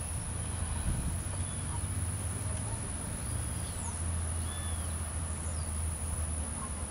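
Outdoor ambience: a low steady hum under a steady high-pitched insect drone, with a few faint, short bird chirps scattered through the middle.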